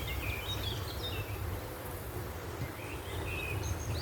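Small birds chirping in short calls, a cluster near the start and another in the last second and a half, over a steady low rumble.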